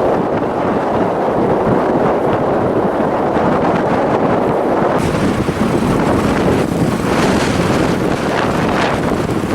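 Strong blizzard wind blasting across the microphone, a loud, steady rumbling noise. About halfway through, a higher hiss suddenly joins it.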